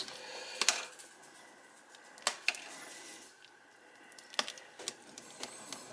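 A spoon stirring thick split pea soup in a slow cooker pot, with a few light, irregular knocks of the spoon against the pot.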